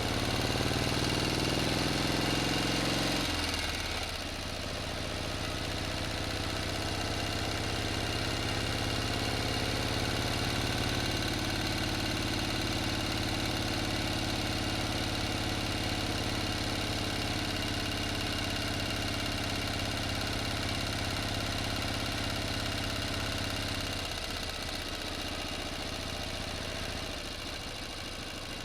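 A motor engine running, louder and climbing slightly in pitch for the first three seconds, then dropping abruptly to a steady, even run; it eases a little quieter again near the end.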